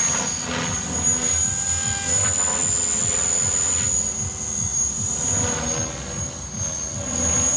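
Radio-controlled helicopter flying aerobatics: a steady high-pitched whine from its drive, with the rotor blade noise swelling and fading as it flips and rolls.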